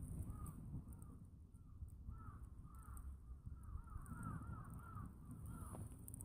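Crows cawing faintly in a long series of short, arched calls, several overlapping in the middle.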